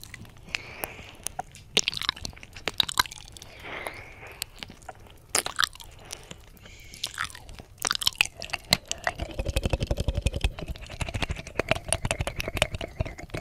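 Close ASMR 'ear eating' mouth sounds on a 3Dio binaural microphone's silicone ear: wet clicks, smacks and licking strokes, scattered at first, then a fast dense run of wet strokes from about nine seconds in.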